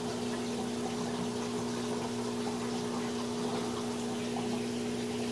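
Steady electric hum of reef aquarium pumps with water circulating, a constant drone with a low pitch and a higher overtone over an even rush of water.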